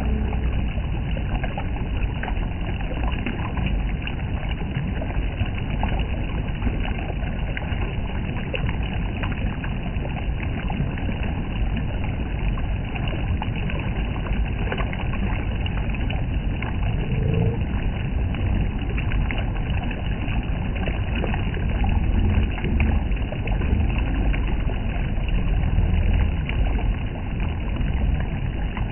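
Shallow, rocky river flowing over stones right at the microphone: a steady, close rush of water, heavy in the low end, swelling a little louder for a few seconds near the end.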